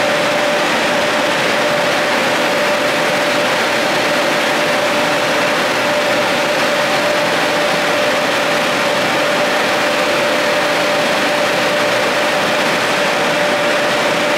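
Funicular drive machinery running steadily: the Brown Boveri (BBC) electric motor and gearbox turning the large haul-rope sheave, a constant mechanical hum with one steady whine over it.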